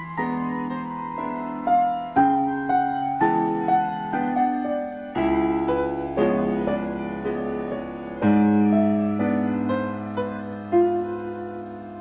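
Slow instrumental end-credits music on a keyboard, piano-like: a melody of struck notes that fade after each strike, over low bass notes that change every few seconds.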